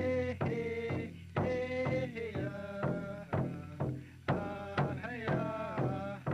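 Instrumental closing music: a slow run of notes, about two a second, each struck sharply and ringing out, some held longer.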